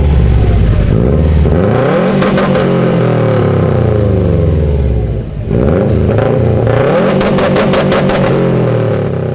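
Subaru turbocharged flat-four engine accelerating hard, its pitch rising through a pull, breaking off briefly a little past halfway at a gear change, then rising again. A rapid rattle runs through the middle of each pull.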